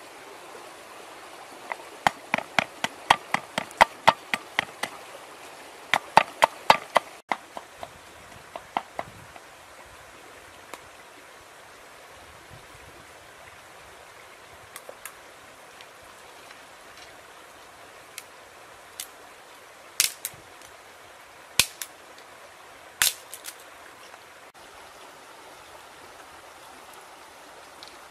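Two quick runs of sharp knocks, about four a second, then scattered single knocks, over a steady hiss.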